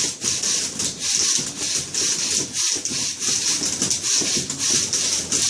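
Manual typewriters played as percussion, their keys striking in a rapid, continuous clatter.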